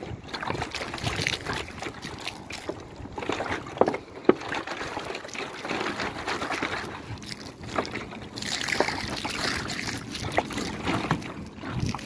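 Water poured from a plastic container splashing onto dry dirt and fallen leaves, with scattered sharp clicks through the pour.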